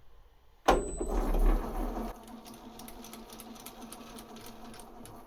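Metal lathe starting up about a second in, with a sudden clunk and a heavy low rumble as it comes up to speed, then running steadily with a fast, even mechanical rhythm.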